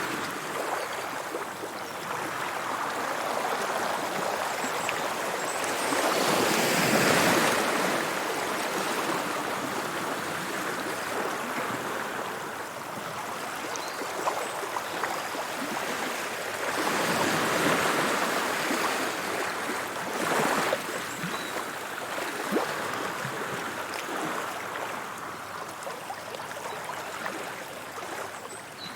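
Sea waves washing onto the shore, a steady rushing that swells twice as a wave breaks, about seven seconds in and again about eighteen seconds in.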